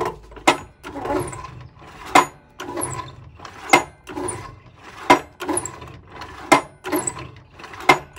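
Mitre saw head repeatedly pushed down and let spring back up on its freshly lubricated pivot, about six strokes, each ending in a sharp clack, with scraping and a brief high squeak between strokes.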